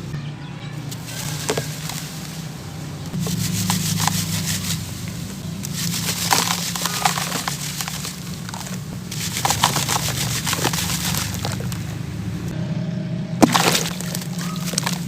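Dry sand-cement chunks crumbling and crunching in the hands, in several separate bursts of fine crackling a second or few long, over a steady low hum.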